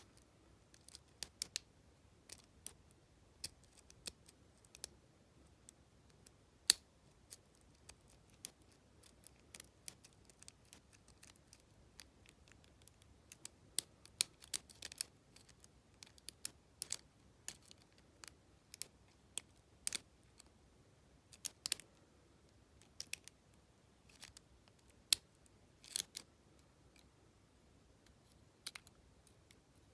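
Lock pick and tension wrench working the pins of an Abus T65AL/40 padlock: irregular light metallic clicks, a few a second with short pauses, some louder snaps among them.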